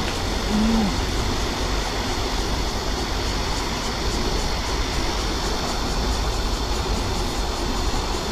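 Steady rushing of whitewater from a small cascade pouring into a river pool.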